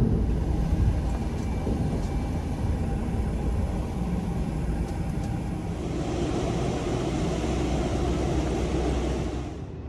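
Bus running along a road, heard from inside the cabin: a steady low engine and road rumble, with a hiss that grows louder about six seconds in. The sound drops away just before the end.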